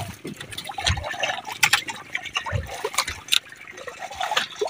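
Sea water sloshing and splashing against a small wooden outrigger boat as a fishing net is paid out over the side. Scattered sharp clicks run throughout, with a couple of dull knocks against the hull.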